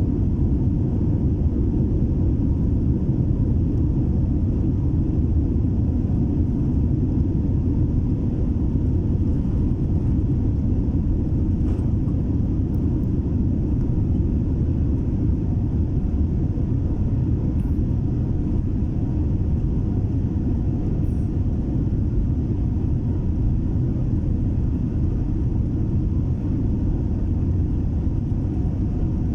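Boeing 787 Dreamliner jet engines during takeoff, a steady low rumble that holds level throughout.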